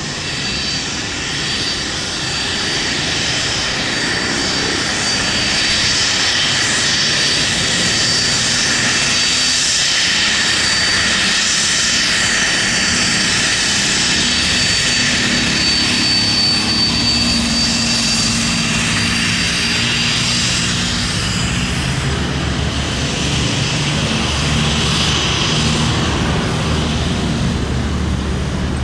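Twin Pratt & Whitney Canada JT15D turbofans of a Cessna Citation 501 running at taxi power: a steady high whine over a rushing hiss. Near the end the jet turns its exhausts toward the listener and a low rumble grows in under the whine.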